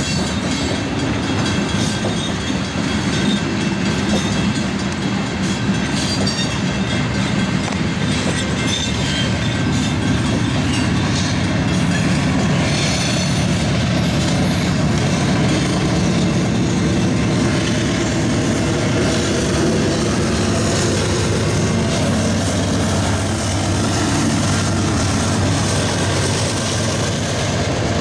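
Coal train rolling past, the coal hopper cars' steel wheels running on the rails in a steady loud rumble. About halfway through, the Union Pacific mid-train distributed-power diesel locomotives go by, and their engines add a steady low drone.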